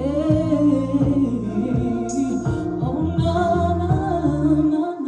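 A singer drawing out a wordless, wavering vocal run over a slow ballad backing track. The backing's bass drops out near the end, as the song closes.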